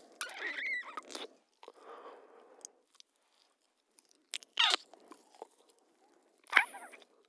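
Kissing sounds: wet lip smacks, a longer smacking kiss at the start, then faint clicks and two short, sharp kisses in the second half.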